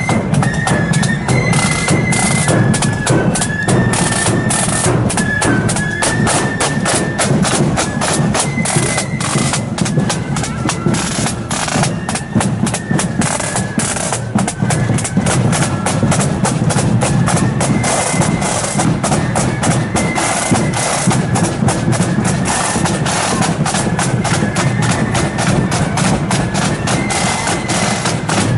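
Marching band playing in a street parade: rapid, dense snare drumming under a high, stepping melody line.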